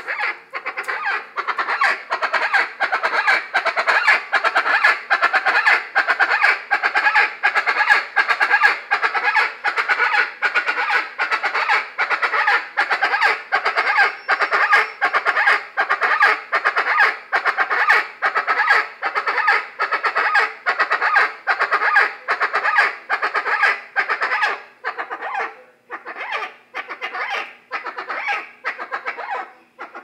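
Chachalaca (guacharaca) calling: a harsh call repeated rapidly and rhythmically over and over, breaking up into shorter, gappier calling about 25 seconds in.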